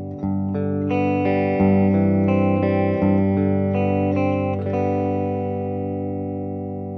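Electric guitar played through a U-Sound Antarctic Chorus II effects pedal: a string of picked notes for the first five seconds or so, then the last chord rings out and fades.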